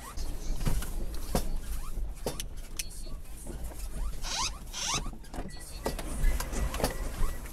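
Irregular knocks, rattles and short squeaks from a vehicle and its dashcam being shaken by an earthquake, over a low rumble, with a couple of brief hissing rustles about halfway through.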